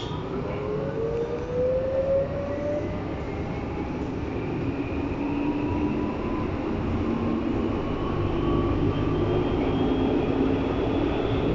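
Berlin U-Bahn H-type electric train running in the tunnel: wheel and track noise under a traction-motor whine whose tones climb slowly in pitch as the train picks up speed out of the station.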